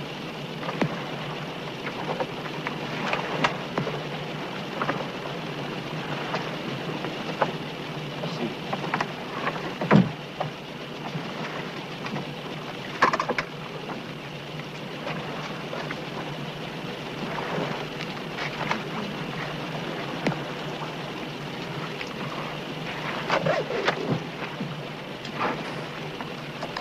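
Steady rushing noise of wind and sea on a boat's deck, with scattered knocks and clatter as scuba tanks and diving gear are handled. There are a few louder knocks, one about ten seconds in.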